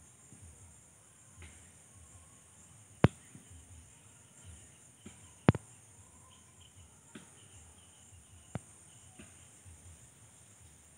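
Steady high-pitched drone of insects, typical of crickets or cicadas. A few sharp clicks stand out over it, two loud ones about three and five and a half seconds in and fainter ones later.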